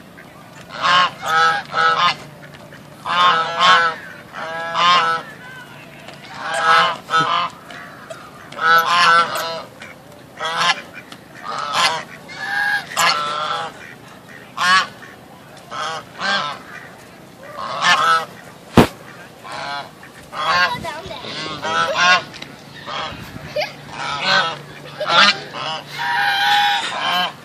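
A group of white domestic geese honking over and over, in clusters of several calls every second or two, as they advance in a chase. A single sharp click about two-thirds of the way through.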